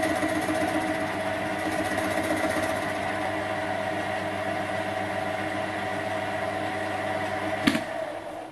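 Small Chinese metal lathe running steadily, driving a gear cutter that is cutting a tooth space in a gear blank fed up through it on a vertical mill slide. Near the end there is a single sharp click, and the running sound then begins to die away.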